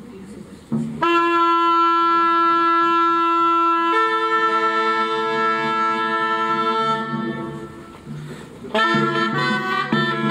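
Medieval shawms, loud wooden double-reed pipes, playing long held notes over a low drone from about a second in, stepping up to a higher note at about four seconds. The notes fade out around seven seconds, and a quicker tune of short notes starts near the end.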